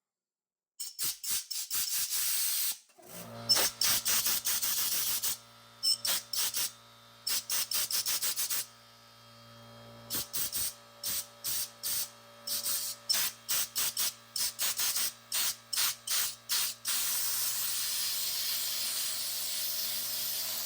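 Compressed-air blow gun fired in many short blasts of hissing air, some longer, ending with a long steady blast. From about three seconds in, an air compressor motor runs underneath with a steady hum.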